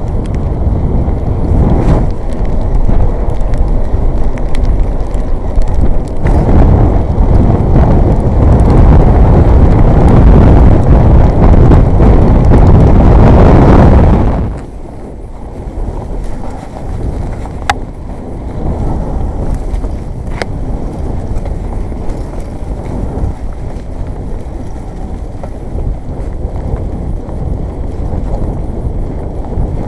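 Mountain bike ridden over a rough, wet trail, heard through an action camera's microphone: tyre, chain and frame rattle mixed with wind buffeting the mic. Very loud for the first half, then it drops sharply about halfway through to a lower, steady rumble.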